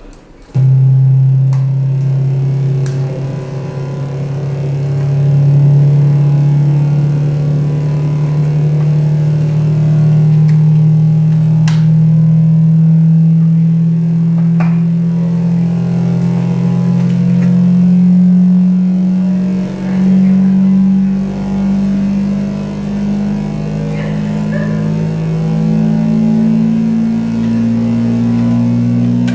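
Loud electronic drone from the soundtrack of a played video clip. It starts suddenly just after the beginning, then holds a steady low hum that slowly rises in pitch, stepping up a little near the end, with a few faint clicks over it.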